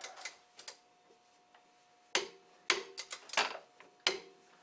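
An old torque wrench used as a ratchet on a 32 mm socket, clicking in short bursts of a few clicks with quiet gaps between. It is turning the BMW S54 engine over by hand at the crankshaft to rotate the camshafts.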